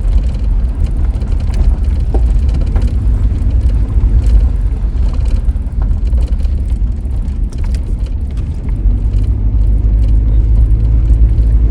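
Car driving: a steady low rumble of engine and tyres, with scattered small clicks and knocks.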